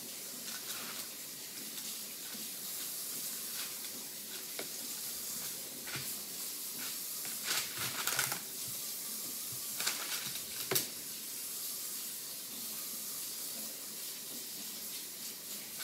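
Kitchen tap running steadily into a sink as hands are washed, with a few light knocks and clatters.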